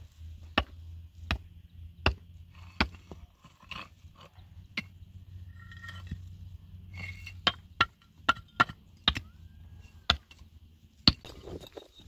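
Repeated sharp blows of a hand tool on wood or stone, about one every three-quarters of a second at first, then a quicker run of strikes later, over a low steady hum.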